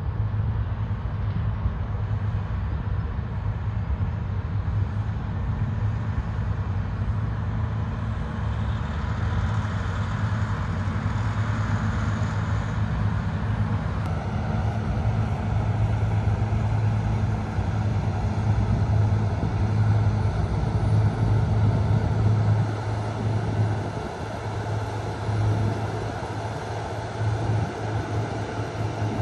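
Cat 140M motor grader's diesel engine running steadily with a deep drone as it works the road, growing louder past the middle and dropping back near the end.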